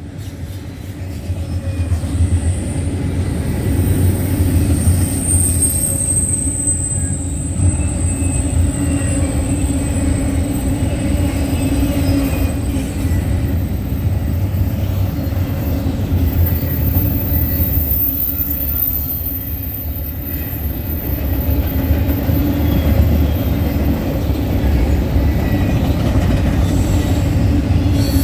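Long CN freight train rolling past, its cars rumbling over the rails steadily with a thin, high wheel squeal above the rumble.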